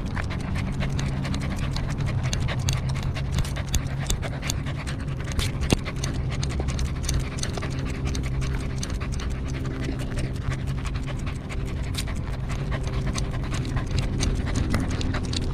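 A corgi panting steadily, heard close up from a camera on its collar, with scattered small clicks and a low steady hum underneath.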